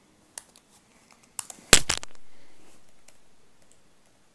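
Computer keyboard keys and clicks, with a loud double knock a little under two seconds in that fades away slowly.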